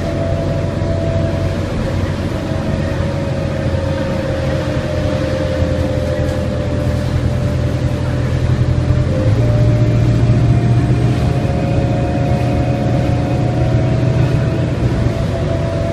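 Cabin sound of a 1995 New Flyer D40LF city bus under way: its Detroit Diesel Series 50 engine and Voith DIWA transmission running with a steady low drone and a whine, over tyre noise from the wet road. The engine note steps up in pitch about nine seconds in.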